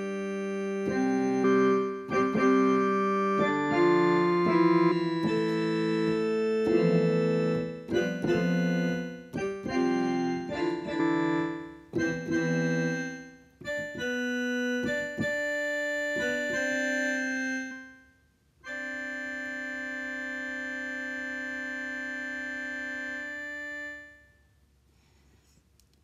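Digital piano set to its organ voice, playing a run of chords and notes that each hold at a steady level without fading. Near the end comes one long chord held for about five seconds before it stops.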